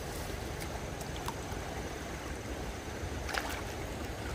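Stream water running steadily, with a few brief clicks or light splashes, the loudest about three and a half seconds in.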